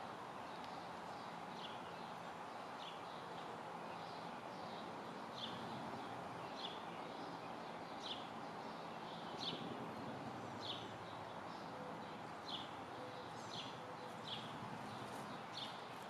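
A short, high chip call repeated about once a second, each note dropping slightly in pitch, over a steady outdoor hiss.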